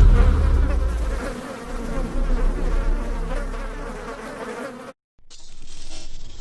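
Buzzing like a flying insect's wings, fading over about five seconds, then cut off abruptly. After a brief silence a different sound begins.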